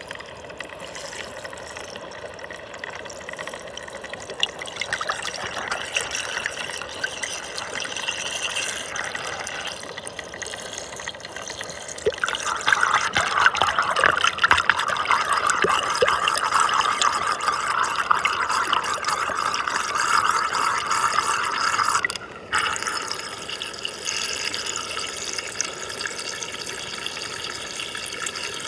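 Muddy water rushing and gurgling as it spins down a whirlpool vortex. The rushing grows louder a little before halfway through and drops out for a moment about three quarters of the way through.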